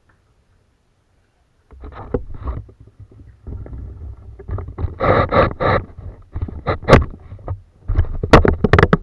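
Water splashing and knocking against a plastic kayak hull in uneven bursts, starting about two seconds in, with a few sharp knocks; loudest around the middle and near the end.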